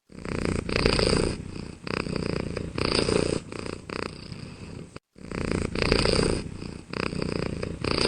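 Rough, rumbling animal purring sound effect, coming in loud swells with short gaps. It cuts out briefly about five seconds in, then the same clip starts again.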